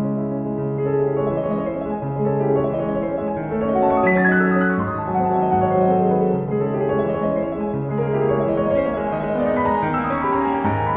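Background piano music, a gentle melody of held notes changing about once a second.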